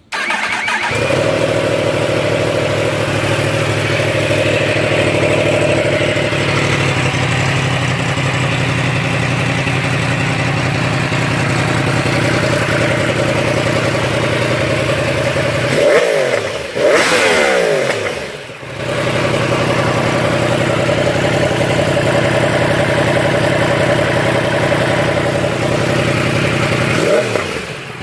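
Superbike inline-four engine running straight-piped with no muffler, holding a steady note. The rider gives quick rev blips about two-thirds of the way through and again near the end.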